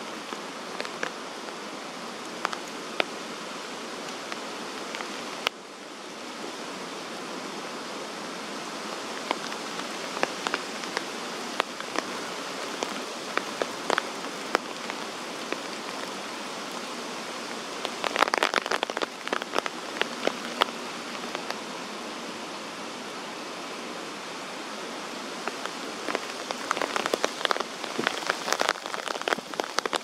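Steady rain falling through tree foliage, with sharp drops striking close by; the drops come thick in a cluster about eighteen seconds in and again near the end.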